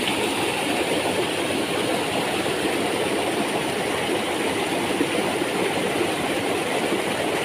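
Small waterfall on a mountain stream, water rushing and splashing steadily over rocks; a noisy, unbroken rush.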